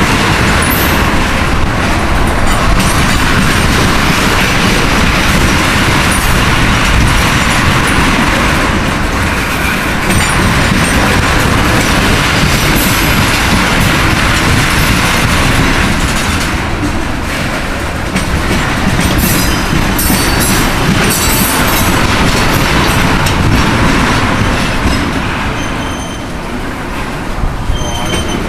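Freight train of ethanol tank cars rolling past, steel wheels clacking over rail joints and the diamond crossing, with some high-pitched wheel squeal near the end.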